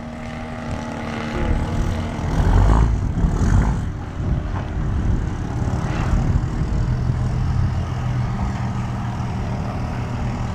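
Two-stroke 50cc gas engine and propeller of an Extra 300 RC aerobatic plane, droning steadily in flight, its pitch shifting as it manoeuvres.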